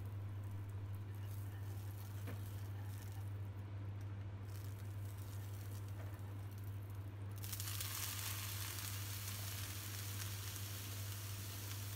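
Broccoli florets frying in melted butter in a hot nonstick wok. A steady sizzling hiss starts suddenly about seven seconds in as the florets hit the pan; before that there are only faint sounds of the butter melting.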